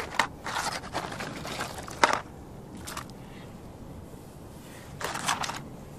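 A cardboard fireworks box being handled and opened, with foil-wrapped firework pieces tipped out onto the ground: paper and foil rustling, a sharp knock about two seconds in, and another rustle near the end.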